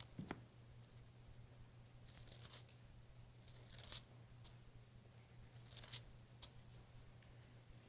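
Thin Bible pages being turned, heard as several short, faint paper rustles over a low steady hum.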